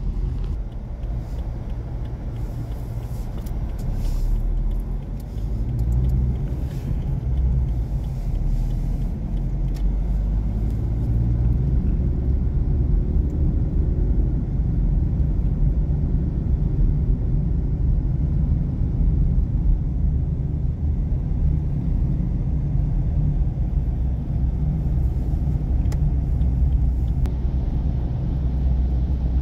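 Car driving, heard from inside the cabin: a steady low rumble of engine and tyres on the road, growing a little louder about five seconds in.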